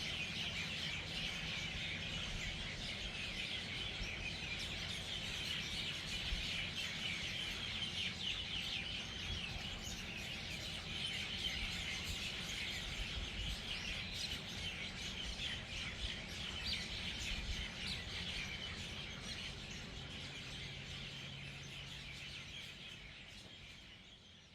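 Dense chorus of hundreds of birds chirping at once as they gather at an evening roost, a continuous mass of overlapping calls that fades out over the last few seconds.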